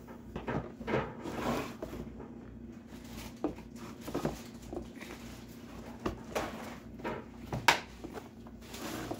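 Hard plastic parts of a Mainstays 3-tier plastic cart knocking and clacking together as hollow white posts are handled and pushed into the tray's corner sockets: a dozen or so irregular sharp knocks, the loudest about three-quarters of the way through.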